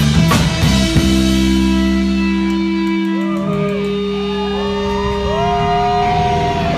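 Amplified electric guitar ringing out in long held notes that bend and slide in pitch, after the drums drop out about a second in.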